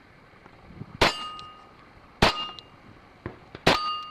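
Three pistol shots, the first about a second in and the others about a second and a half apart, each followed at once by the ringing clang of a struck steel plate target.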